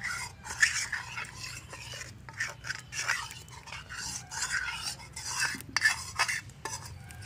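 Steel spoon scraping and clinking against metal cookware in irregular short strokes, then a hand rubbing around the inside of a steel wok near the end.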